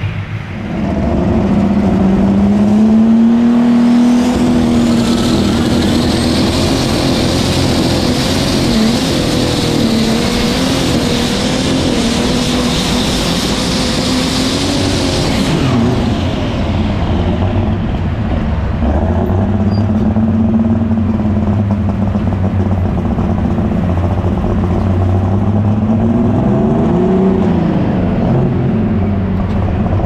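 Alcohol-burning, turbocharged Case IH light super stock pulling tractor engine at full throttle on a pull, with a high whistle over the engine note. About halfway through the whistle stops and the engine drops to a lower, steady run, rising and falling in pitch again near the end.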